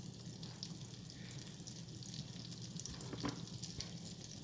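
Stick of butter melting in a saucepan on a stove burner, sizzling faintly with scattered tiny pops, and one soft knock about three seconds in.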